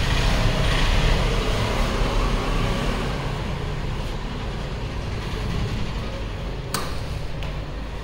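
Steady low rumble of outdoor background noise that eases off over the seconds, with one sharp click near the end.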